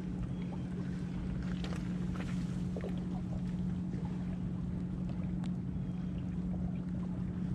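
A steady low motor drone holding one pitch, with a few faint ticks scattered through it.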